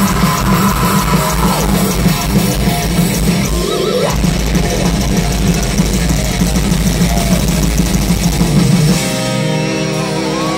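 Heavy metal band playing live over a large outdoor PA, with distorted guitars, bass, drums and vocals. Near the end the drums and bass stop and a chord rings on.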